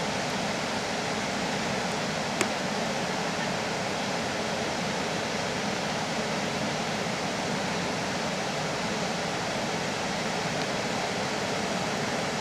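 Flash-flood water rushing steadily through a desert wash, an even continuous noise of fast-moving muddy water, with one brief click about two seconds in.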